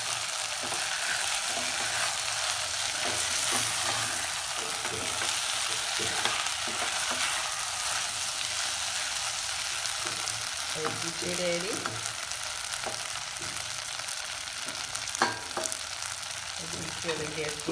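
Boiled pearl millet (bajra) with its masala sizzling in oil in a steel pot while a spatula stirs it steadily; the oil has begun to separate from the masala, the sign that the dish is cooked through. A single sharp knock sounds about fifteen seconds in.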